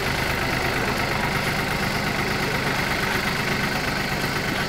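Farm tractor engine running steadily as it pushes a boat trailer across the sand toward the water.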